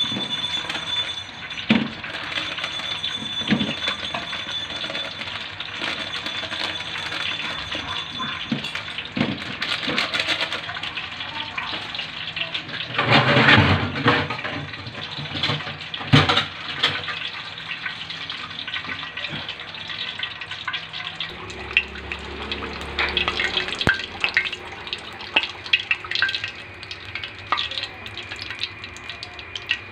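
Kitchen handling sounds while tilapia is dredged in breading mix: scattered clicks and knocks over a steady hiss, with a louder burst of noise about halfway through. Near the end, oil heating in a wok begins to bubble.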